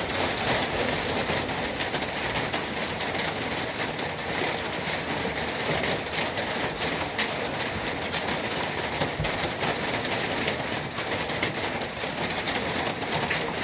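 60-grit sandpaper rubbed by hand over diamond-plate metal, a steady scratchy rubbing made of many quick strokes.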